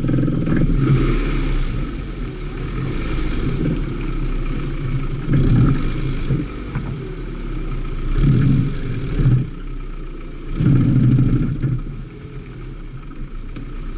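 Toyota Corolla's engine accelerating hard and easing off over and over, with its loudest surges about five, eight and eleven seconds in. Each surge rises in pitch, then drops away as the throttle is lifted.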